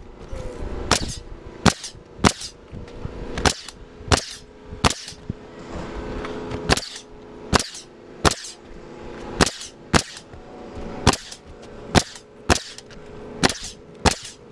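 Pneumatic coil roofing nailer firing nails through asphalt shingles: a string of sharp shots, one every half second to a second, some in quick pairs, as the shingle course is nailed off.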